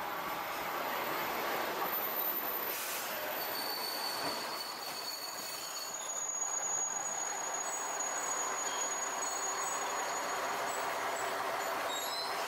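JR Shikoku diesel railcar pulling into a station platform and slowing, with its running noise steady throughout. High-pitched squeals from the brakes and wheels come and go as it slows.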